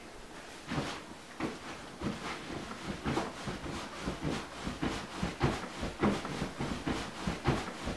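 A man jumping on a leather couch: repeated thumps and creaks of the cushions and frame, a few a second, starting about a second in and coming closer together toward the end.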